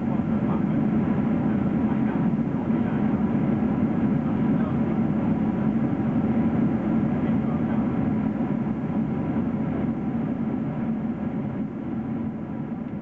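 Steady cabin roar of a Boeing 777-300ER in cruise: rushing air and the twin GE90 engines heard through the fuselage, a deep, even rumble. It begins to fade away near the end.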